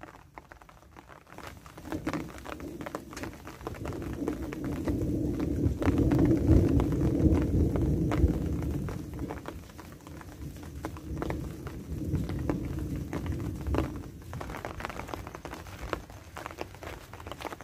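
Rolling thunder: a low rumble that builds over a few seconds, peaks and fades, followed by a weaker second roll, over light rain patter.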